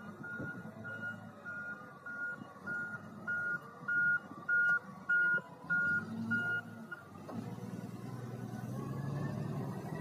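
Wheel loader's reversing alarm beeping about one and a half times a second over its diesel engine running. The beeping stops about seven seconds in and the engine grows louder.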